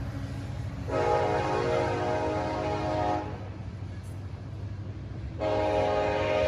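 CN freight locomotive air horn sounding two long chorded blasts, one about a second in and another about five seconds in, over the steady low rumble of the train rolling by. The long-long pattern, followed by a short blast, is the standard grade-crossing warning.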